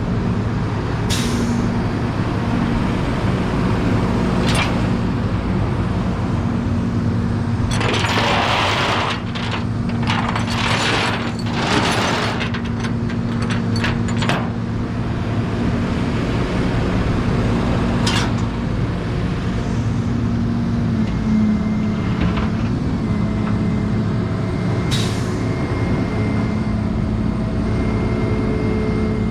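A road vehicle's engine running steadily, heard while driving. A run of loud hissing bursts comes about 8 to 14 seconds in, with a few sharp clicks elsewhere.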